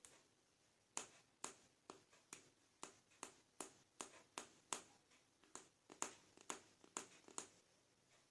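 Small plastic toy pieces clicking against a hard surface or each other, a regular run of about sixteen light, sharp clicks, roughly two to three a second, starting about a second in and stopping shortly before the end.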